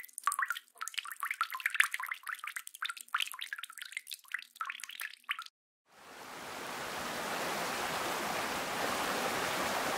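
Many coins dropping and clinking in quick succession, standing for several donations coming in. After a short gap, about six seconds in, a steady rushing noise swells up and holds.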